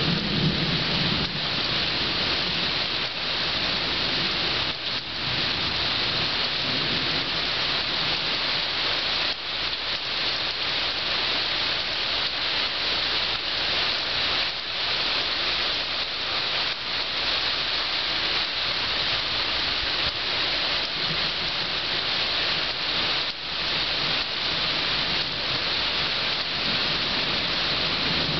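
Rain pouring down steadily during a thunderstorm, a dense even hiss, with a low rumble of thunder fading out in the first second.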